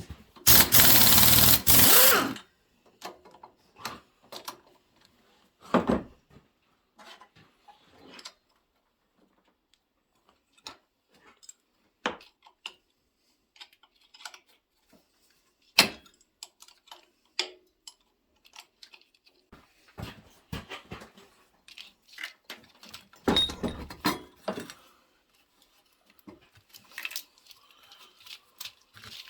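Hand tools working on a truck engine: scattered metallic clicks and clinks of wrenches and bolts as the air-conditioning compressor is unbolted, with a loud noise lasting about two seconds near the start.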